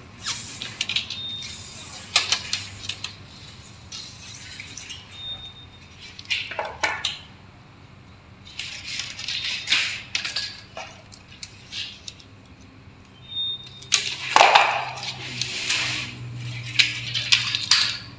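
Hands working a plastic LED-strip channel and small tools: scattered rustling, scraping and clicks. The loudest stretch of scraping comes about fourteen seconds in and lasts a few seconds.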